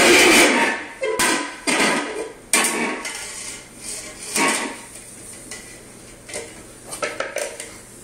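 Upturned bowls scraped and knocked about on a tile floor by a toddler. A loud scraping rush comes first, then a string of sharp knocks and clatters at uneven gaps that grow fewer and quieter.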